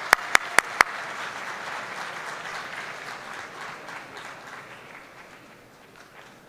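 Audience applauding in a large hall, with a few loud, sharp claps standing out in the first second; the applause then dies away.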